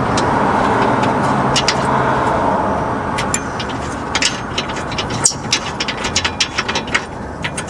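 Irregular light metallic clicks and clinks of hand tools and suspension hardware as a sway bar end link is fitted to a car's rear suspension. They begin about three seconds in, after a stretch of steady mechanical background noise with a low hum.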